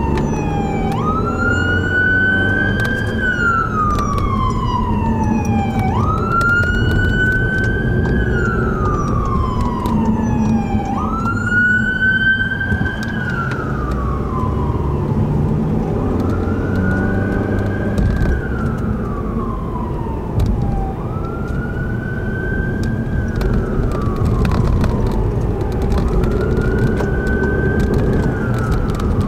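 Fire department emergency vehicle's siren in wail mode. Each cycle rises quickly and then falls slowly, repeating about every five seconds, over the low rumble of city traffic. The wail grows fainter in the second half.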